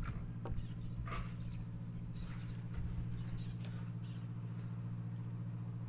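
A motor's steady low hum, with a few faint short chirps about one second and three and a half seconds in.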